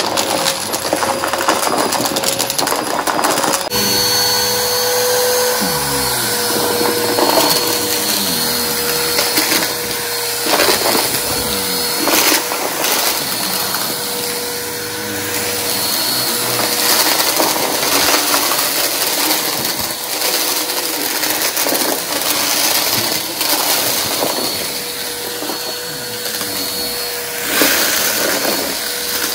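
Vacuum cleaner running and picking up debris, with scattered clicks and rattles over a steady motor whine. About four seconds in, a high whistle stops and the motor's tone shifts.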